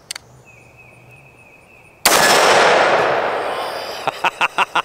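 A single shot from an AR-15 rifle (Argos Ordnance A115, 5.56 NATO) about two seconds in, with a long echo fading away over about two seconds. A quick run of short clicks follows near the end.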